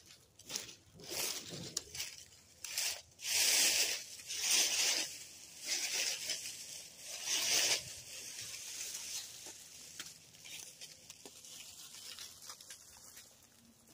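Irregular rustling and crackling, like dry plant material being handled or trodden, with several loud rustles in the first half and lighter scattered rustling after that.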